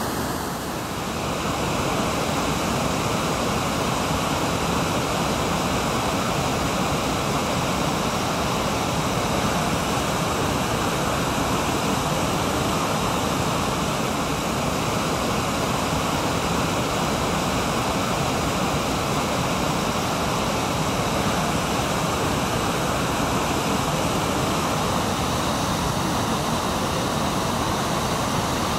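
Water pouring over Brooks Falls and through the river rapids in a steady rush.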